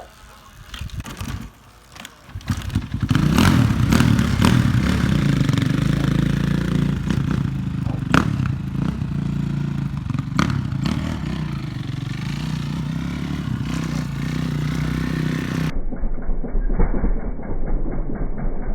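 Suzuki RM-Z450's single-cylinder four-stroke engine catching after a few knocks, about three seconds in, then running loudly with repeated blips of the throttle. Near the end the sound turns abruptly duller.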